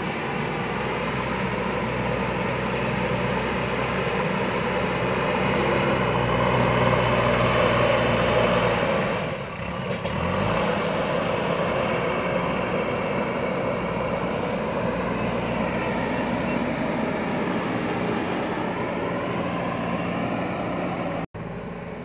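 JCB backhoe loader's diesel engine running under load as the machine pushes and lifts soil with its front bucket. The engine note rises and falls as it works, with a short dip just before the middle and a brief break near the end.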